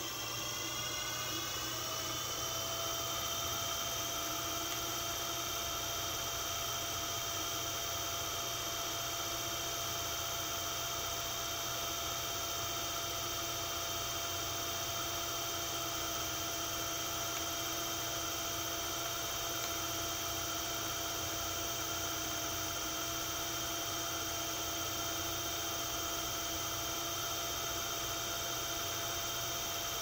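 Hoverboard hub motor, a brushless DC motor, spinning a homemade fan blade at high speed: a steady electric whine with several overtones over a rush of air. The pitch rises for the first few seconds as the motor spins up, then holds steady.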